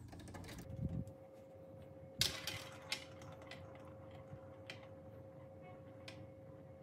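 Plastic balls of a VTech Marble Rush set rolling through its plastic track pieces, clicking and rattling. There is a sharp clatter about two seconds in, then lighter scattered ticks.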